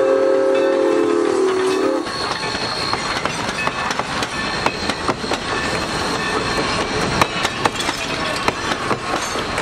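Steam whistle of Valley Railroad 2-8-2 No. 3025 blowing a chime chord that cuts off about two seconds in as the locomotive passes. Then the passenger coaches roll by, their wheels clicking over the rail joints.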